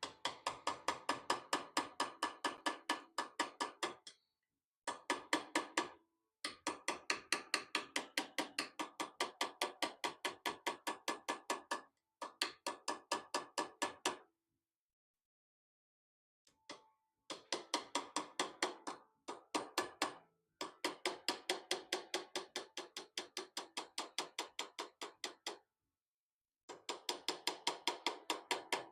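Blacksmith's hand hammer forging wrought iron on an anvil: rapid runs of about five ringing blows a second, broken by short pauses every few seconds.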